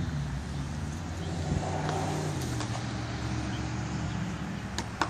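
A car engine idling, a steady low hum, with a faint click near the end.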